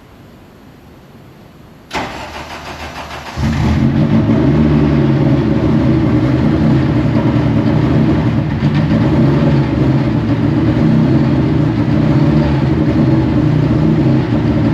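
Deep Orange 9 race car's engine cranked by its starter for about a second and a half, then catching and running loudly and steadily. It is running on ECU volumetric-efficiency and spark-timing maps that are being retuned so it will idle properly.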